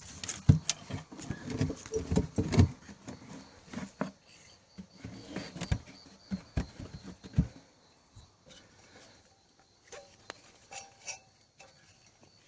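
Irregular thumps, knocks and rustling from handling and moving about, busy for the first eight seconds and then thinning to a few faint clicks.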